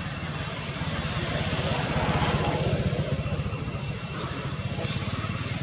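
An engine running steadily, getting somewhat louder about two seconds in and then easing back, with a few faint, short, high-pitched chirps over it.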